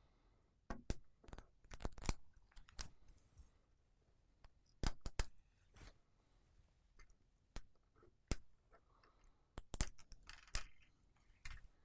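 Irregular sharp clicks of metal tweezers on an iPhone's aluminium housing, with short scraping and peeling sounds as adhesive strips are picked off the dock connector.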